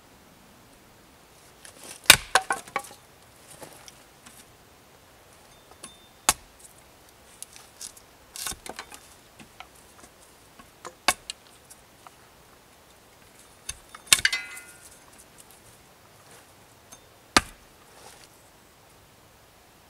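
Hatchet work on wood: a handful of single sharp knocks several seconds apart, some in short clusters. One strike about two-thirds of the way through has a brief metallic ring.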